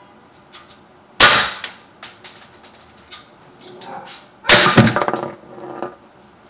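Two shots from a Sig Sauer M17 CO2 air pistol, each a sharp pop as the BB or pellet strikes a phone's glass screen: one about a second in and another about three seconds later. The second, loudest shot knocks the phone over, and it clatters down in a run of small knocks.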